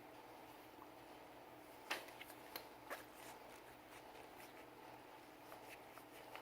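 Faint handling noises from cleaning a Sig Sauer P320 pistol: a few light clicks and taps of parts and tools, the sharpest about two seconds in, over a steady low hum.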